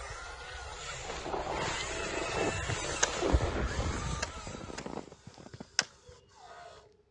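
Toy vehicle's small electric motor whining and shifting pitch under a rough scraping, grinding noise as it drives. The motor stops about five seconds in, followed by a few small clicks and one sharp click.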